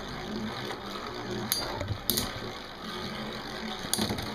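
Two metal-wheeled Beyblade spinning tops whirring in a plastic stadium, with three sharp clacks as they strike.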